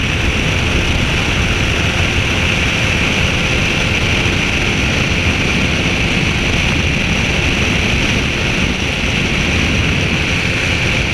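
Steady rush of wind and engine noise from a flex-wing microlight trike in cruising flight, with wind buffeting the microphone.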